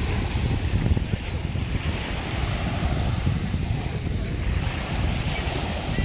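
Small sea waves breaking and washing up a pebble beach, with wind buffeting the microphone.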